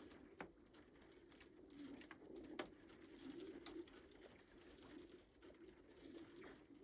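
Thawing lake ice humming low and wavering, with faint crackles and sharp ticks from the ice scattered through, one sharper crack a little past halfway.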